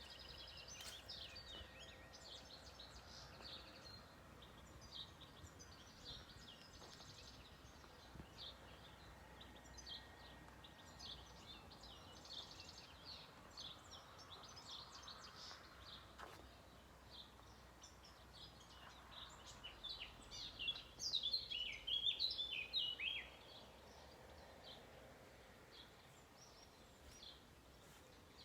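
Small birds chirping and singing: many short, high chirps throughout, with a louder run of quick falling chirps about two-thirds of the way through.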